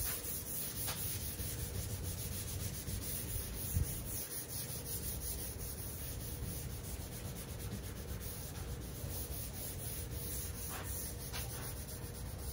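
A hand rubbing back and forth over a sealer-primed car hood, a steady dry rubbing. The sound tells the slightly rough, unsanded sealer from areas sanded smooth.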